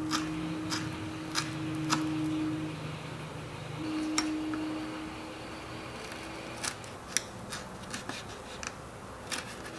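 Tiny knife cutting on a small wooden cutting board: sharp, irregular clicks as the blade chops green onion and then slices cooked pork.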